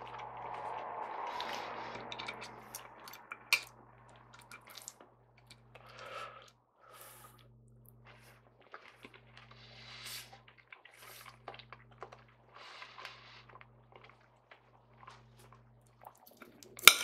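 Eating sounds: chewing and mouth noises with scattered light clicks of a knife and fork on a plate, and a sharp clatter of cutlery against the plate near the end.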